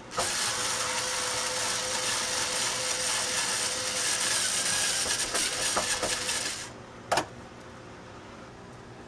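Cordless screwdriver running steadily as it backs a screw out of a plywood wall panel, its motor whine stopping after about six and a half seconds; a single click follows shortly after.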